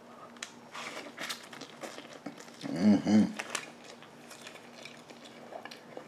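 A person eating instant noodles: soft chewing and small wet mouth clicks, with a hummed 'mm-mm' in two pulses about three seconds in.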